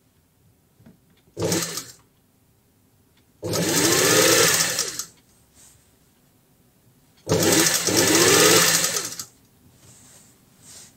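Industrial sewing machine stitching fabric in three runs: a short one about a second and a half in, then two longer runs of nearly two seconds each, the motor speeding up and slowing down within each run.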